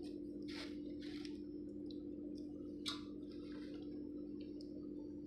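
A steady low hum, with a few light clicks and taps about half a second, one second and three seconds in.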